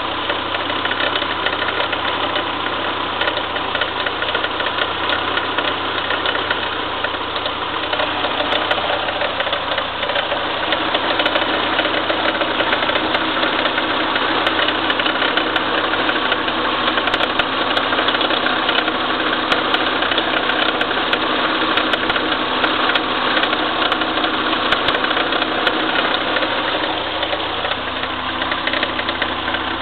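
Engine running steadily at idle, with a dense mechanical clatter that its owner records as an abnormal noise.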